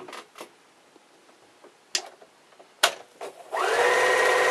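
Electric sewing machine starting up about three and a half seconds in and running steadily as it stitches a seam through a pair of quilt fabric pieces. Before it, a few light clicks as the fabric is handled.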